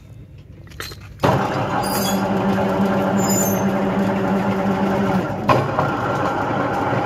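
Rebar bending machine's motor and gearbox starting suddenly about a second in and running with a steady hum as its turntable bends a steel reinforcing bar around the centre pin. A sharp knock comes about five and a half seconds in, after which the running tone changes.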